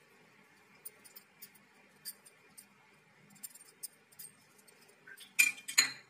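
Sparse light clicks, then two louder sharp clinks about five and a half seconds in, from a serving plate being handled on a kitchen counter.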